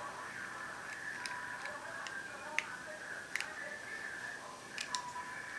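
Small sharp plastic clicks as the back cover is pressed onto a cell phone watch: a few separate clicks, the last two close together near the end, over a faint steady background tone.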